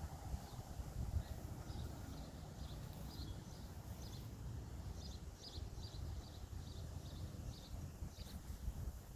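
Small birds chirping: a run of short, high chirps repeating a few times a second, starting about two seconds in and stopping near the end, over a steady low rumble.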